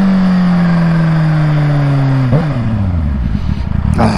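Kawasaki Ninja H2's supercharged inline-four, running without its exhaust silencer, at motorway speed with wind rushing past. The engine note falls steadily off the throttle, then about two seconds in there is a sudden jolt and the pitch starts climbing again as it pulls.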